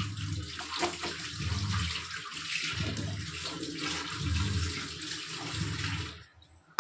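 Vegetable soup boiling hard in a steel pot, a steady hissing, bubbling rush, while a perforated steel skimmer stirs it. The sound drops away about six seconds in.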